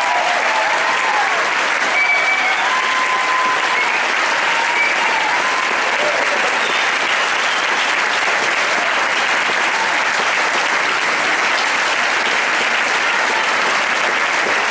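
A large audience applauding steadily, with a few voices cheering in the first few seconds.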